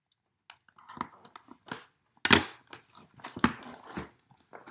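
Packaging crinkling and rustling as a box is opened and its contents are taken out: irregular crackles, the loudest a little over two seconds in.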